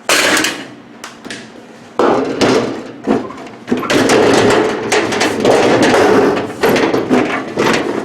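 Metal parts of a microwave's casing being handled: a sharp knock at the start, then a long stretch of clattering and knocking from about two seconds in.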